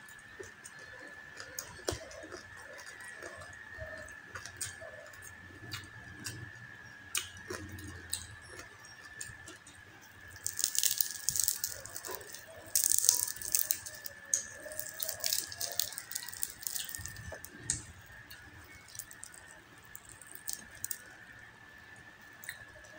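The crispy skin of a deep-fried pork knuckle crackling and crunching as fingers press into it and break it apart, in a dense run of crackles about halfway through, with scattered small clicks before and after. A faint steady high whine runs underneath.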